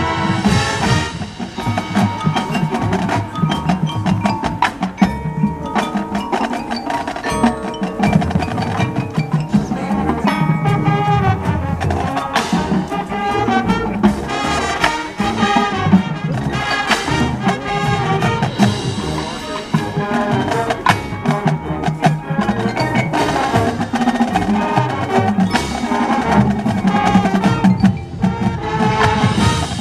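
Marching band music led by percussion: the front ensemble's mallet instruments (marimbas, glockenspiel, chimes) play with struck percussion, in a run of quick, sharp strokes.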